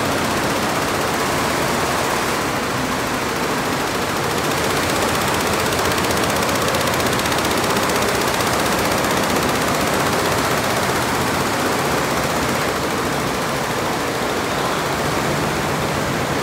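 Lejia multi-head computerized embroidery machines running, many heads stitching at once, giving a steady, even mechanical din.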